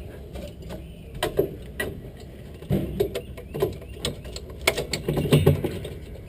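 Irregular clicks and knocks from a race car's brake pedal and its linkage as the driver's boot presses and works it, heard close up, over a low steady hum. The knocks come thickest about five seconds in.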